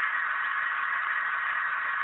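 HO-scale EMD GP9 model's hard-wired MRC sound unit playing its 567 prime-mover engine sound as a steady, thin drone through a small onboard speaker.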